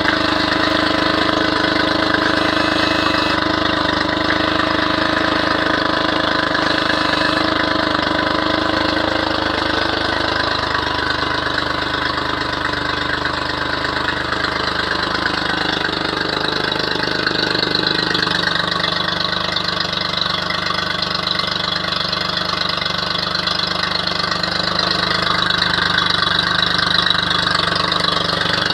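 Honda BF40B four-stroke outboard engine idling steadily out of the water, cooled by a hose, with water splashing out around the propeller.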